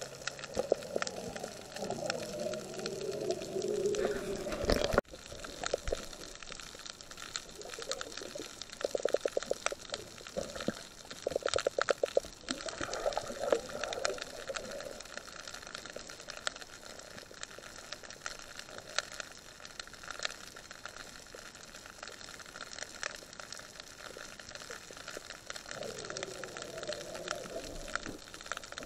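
Underwater sound through a camera housing on a night reef dive: a steady crackle of small clicks, with a wavering bubbling gurgle in the first few seconds and again near the end. There are brief rapid rattles around a third of the way in.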